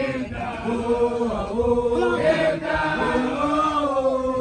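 A group of Basotho initiates chanting an initiation song together in unison, holding notes that change pitch every second or so.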